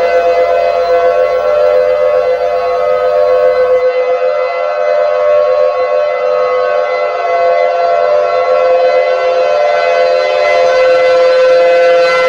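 Civil defense siren sounding a steady tone, held at one pitch with several overtones and a slightly wavering level.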